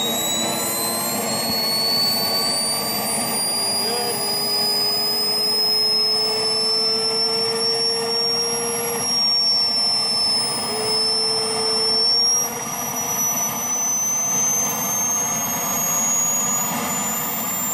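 Model jet turbine engine running through its startup sequence with a high whine whose pitch climbs slowly as it spools up, dipping briefly about halfway before rising again.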